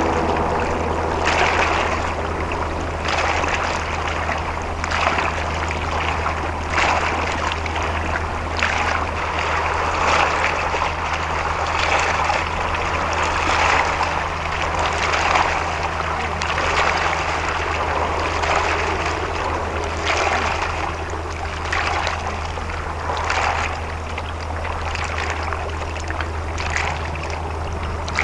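A ship's engine running with a steady low hum, while water splashes and sloshes irregularly against a hull or quay.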